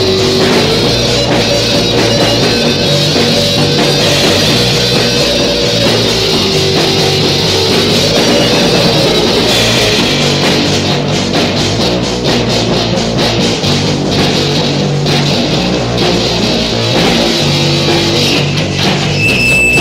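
Early-1980s anarcho-punk song, with guitar and a drum kit playing together.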